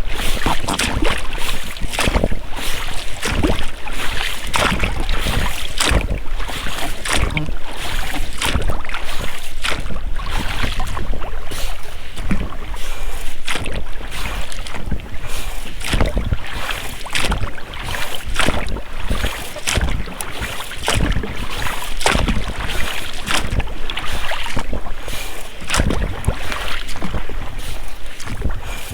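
Oars of a rowed inflatable boat dipping and splashing in the water, stroke after stroke, with the rubber rowlocks working. Wind on the microphone adds a low rumble.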